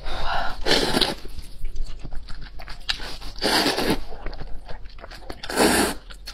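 Close-miked noodles being slurped in three long, noisy pulls, with wet chewing and mouth clicks between them.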